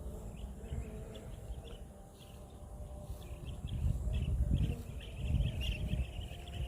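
Rural outdoor ambience: quick repeated high chirping from small creatures, growing denser about halfway through, over low rumbling swells.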